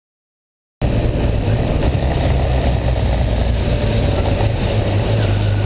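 Silence, then about a second in a vehicle's engine and road noise cut in abruptly and run on steadily, with a strong low hum under a broad rushing noise.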